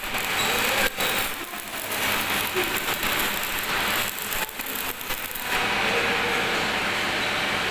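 Electric arc welding: the arc gives a steady hiss broken by several short gaps in the first few seconds, then runs unbroken.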